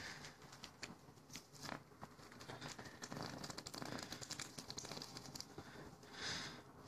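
Faint, irregular crackling and crinkling with scattered sharp ticks, from molten aluminium being poured out of a crucible into a plaster mold and the stiff aluminised heat suits and gloves of the two people holding the pouring shank. A short, louder hiss comes near the end.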